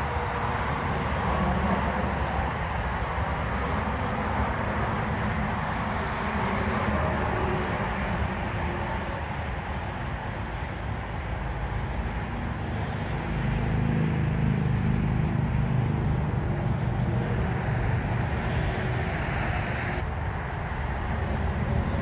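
Steady low rumbling noise with no clear tone or rhythm, swelling somewhat past the middle.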